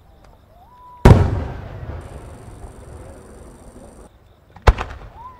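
Large Japanese aerial firework shells (150–210 mm, No. 5 and No. 7 shells) bursting overhead. One heavy boom comes about a second in and rumbles and echoes away over about three seconds. A second sharp bang near the end is followed by a couple of smaller cracks.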